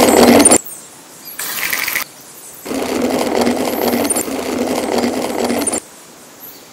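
A small battery-powered electric motor of a miniature model machine running with a steady buzz and gear rattle. It runs briefly, stops, and then runs again for about three seconds before cutting off abruptly.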